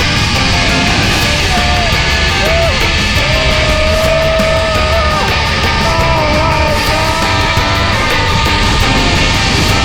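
Loud hard-rock background music with a dense, driving mix and a lead melody line that slides and holds notes.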